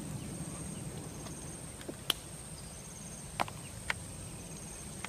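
Insects calling outdoors in short pulsed chirps about once a second over a steady high-pitched tone. Three sharp clicks stand out, the loudest about two seconds in.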